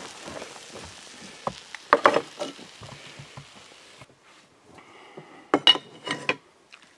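Wood campfire hissing and crackling steadily, cutting off suddenly about four seconds in. A few sharp clinks and knocks follow near the end.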